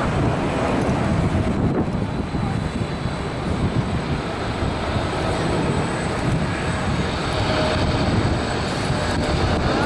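Boeing 777-300ER's GE90-115B turbofan engines on final approach, a steady jet rumble with faint whining tones, mixed with wind buffeting the microphone.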